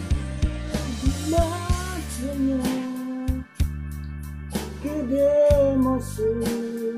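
A man singing a Korean ballad over a karaoke backing track with a steady drum beat and bass, the sung line rising and falling in long held notes.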